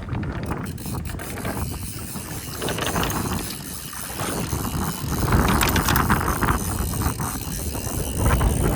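Fly reel's ratchet ticking as line is wound in or pulled off by a hooked salmon, with wind buffeting the microphone. The rumble grows louder about halfway through.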